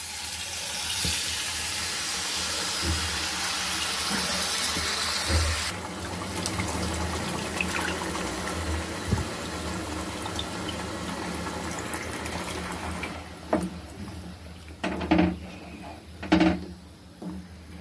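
Tamarind juice poured into a hot pan of frying prawn-and-drumstick curry, a liquid splashing hiss that eases after about six seconds. Near the end comes a wooden spatula stirring the curry, three or so separate strokes.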